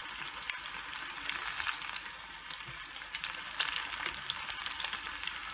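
Besan-battered chicken breast pieces frying in hot oil: a steady sizzle with many small crackles.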